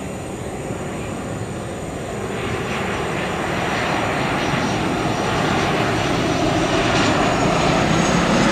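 Boeing 737-900ER airliner's CFM56-7B jet engines on final approach, growing steadily louder as the plane comes nearer, with a thin high whine over the rumble.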